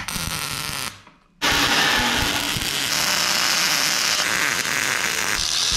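MIG welder arc crackling steadily as a bead is run on steel. It starts about a second and a half in, after a brief hush.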